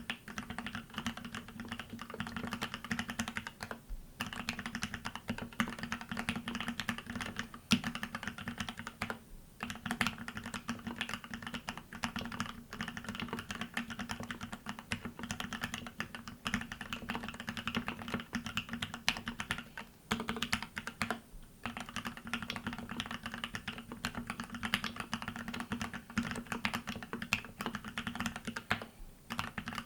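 Continuous fast typing on a TX108se mechanical keyboard with Gateron Ink Black linear switches lubed with Krytox 105, a brass plate and EnjoyPBT 9009 PBT keycaps, broken by a few brief pauses.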